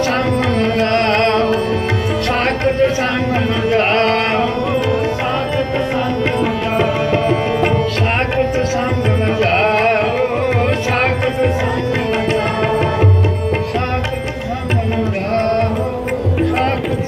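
Sikh devotional kirtan: a man singing a hymn line while playing a Nagi harmonium, with tabla drumming alongside.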